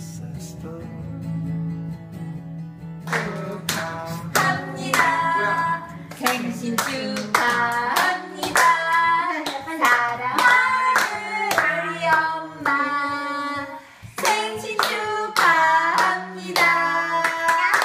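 Soft acoustic guitar music, then about three seconds in a family starts singing a birthday song together, clapping along in time.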